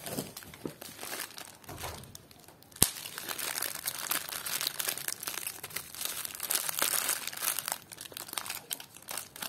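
Bubble-wrap packaging crinkling as it is handled, with one sharp click about three seconds in.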